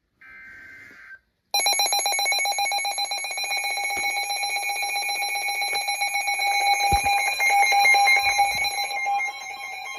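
Emergency Alert System broadcast tones. A one-second burst of SAME digital header data is followed, about a second and a half in, by a loud, fast-pulsing multi-tone alert signal that heralds a new severe thunderstorm warning.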